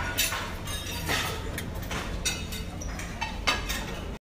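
Dining-room clatter: scattered clinks of dishes and cutlery over a steady low hum, cutting off abruptly near the end.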